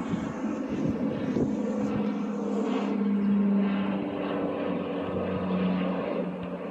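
Aircraft engine drone overhead: a steady hum with a low tone that holds with small shifts in pitch.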